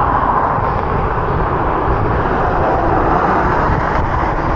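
Steady rush of wind over the microphone of a moving bicycle, mixed with road traffic noise.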